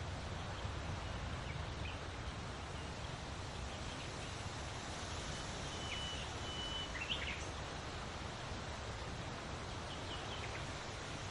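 Steady wind noise with a low rumble. A few short, high bird chirps come through, with a cluster about six to seven seconds in.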